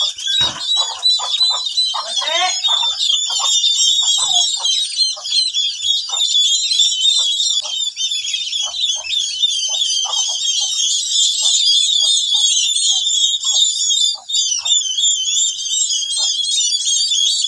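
A brood of turkey poults peeping without pause, many high, overlapping chirps, with short lower clucking calls repeating two or three times a second through it.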